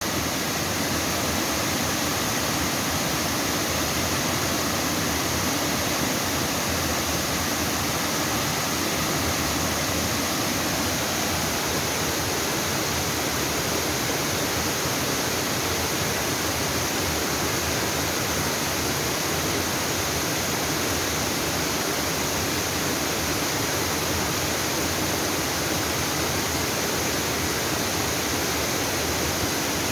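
Waterfall: water falling and splashing into a mountain stream in an even, unbroken rush.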